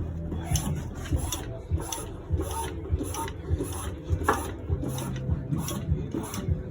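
Cab-tilt hydraulic pump of a DAF dump truck being worked to lower the cab: regular mechanical clicks a little over two a second over a low hum.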